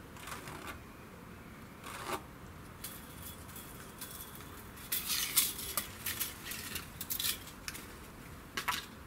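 Metal tape measure being handled and its tape reeled in: light metallic clicks and rattles, a few at first, then a dense run in the middle and a last couple near the end.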